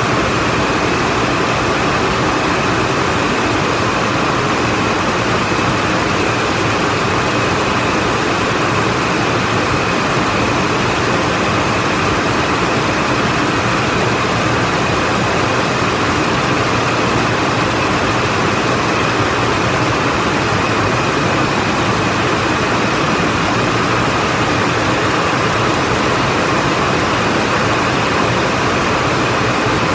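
A hall of water jet looms weaving at full speed: a loud, steady, unbroken mechanical din from many machines running together.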